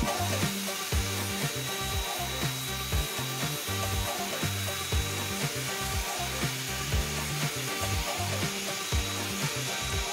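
Water spraying steadily from a handheld shower head onto a dog's soapy coat, rinsing out the shampoo, over background music with a steady beat.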